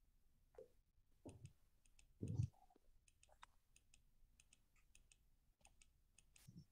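Near silence with scattered faint clicks and a short low thump about two seconds in.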